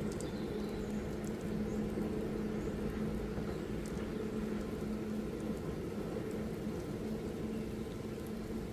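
Steady rain falling, with scattered drops ticking close by, over a faint low hum that comes and goes.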